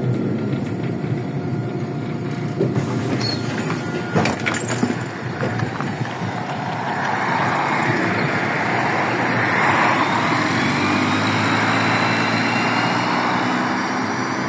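MAZ-103 city bus at a stop, its engine running, with a few sharp knocks and clatter about three to five seconds in. The bus then pulls away, and its engine and tyre noise grow slightly louder with a faint rising whine.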